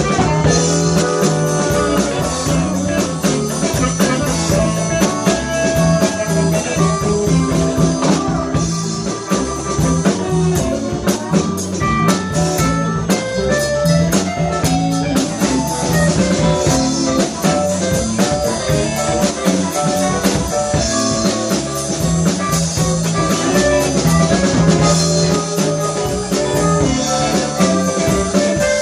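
Live blues band playing with electric guitars, bass, drums and keyboard over a steady beat.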